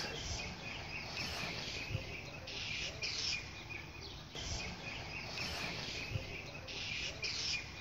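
Faint outdoor background noise, with a high chirring that swells and fades twice.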